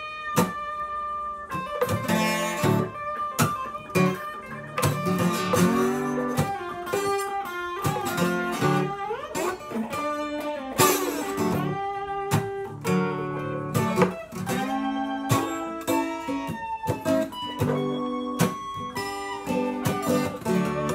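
An acoustic guitar and an electric guitar playing a blues instrumental break together, with lead notes gliding up and down in pitch.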